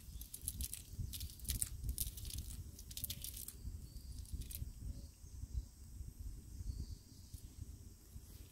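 Wet nylon cast net crackling and rustling as it is gathered and shaken out on a muddy bank, with a low rumble underneath. The crackling falls away about three and a half seconds in, leaving a faint steady high buzz and a few faint chirps.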